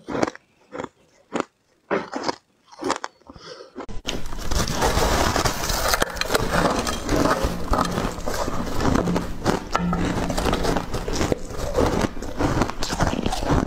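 Teeth biting and crunching through refrozen shaved ice: a handful of separate crisp crunches with short quiet gaps, then from about four seconds in a dense, continuous crunching of fluffy shaved ice.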